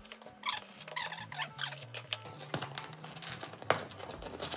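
Kitchen knife slicing packing tape on a cardboard parcel, then the box flaps being pulled and torn open: a run of scratchy crinkles, rips and sharp clicks.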